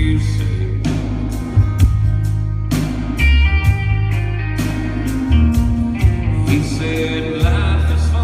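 Live country band playing a song, with a steady drum beat, bass and guitar and some singing.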